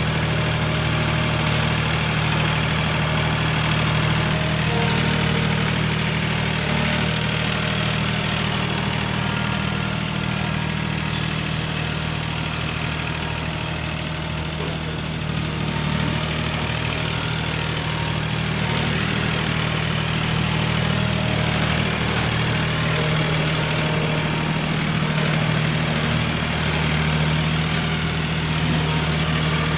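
Tractor engine running steadily, hauling loads of dirt.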